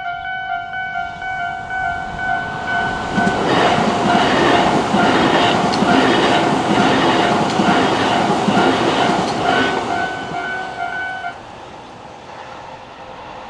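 Japanese railway level crossing's electronic warning bell ringing a shrill, steady repeating tone. From about 3 seconds in to about 10 seconds a Tobu Nikko Line train rushes past over it, its wheels clacking over the rail joints about twice a second. The bell cuts off suddenly about 11 seconds in, leaving the fading train.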